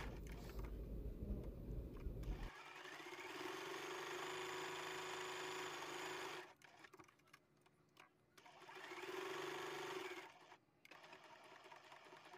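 Electric sewing machine stitching a seam, running steadily for about four seconds, stopping, then running again for about a second and a half.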